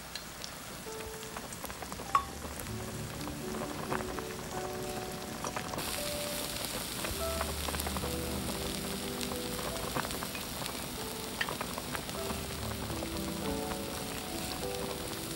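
Vegetable stems simmering and sizzling in a little stock in a cast-iron wok. Wooden chopsticks stir them and click against the pan now and then. Soft background music with a slow melody plays over it.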